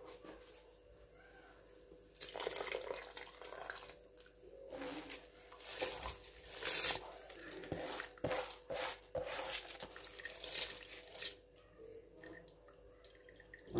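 Raw long-grain rice poured from a steel bowl into a pot of simmering liquid: grains rushing and rattling off the metal and splashing into the water in several uneven pours, starting about two seconds in and stopping near the end.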